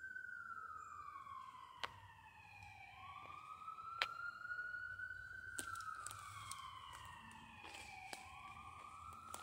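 Emergency vehicle siren wailing faintly, its pitch sliding slowly down and then quickly back up about every four to five seconds. A few sharp clicks sound over it, the loudest about four seconds in.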